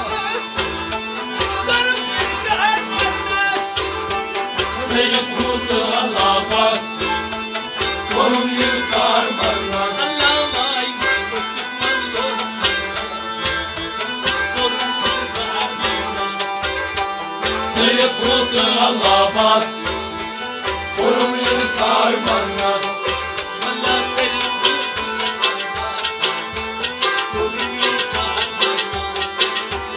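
Live Sufi kalam music: a tabla keeps a steady, even rhythm under melodic lines from stringed instruments and singing.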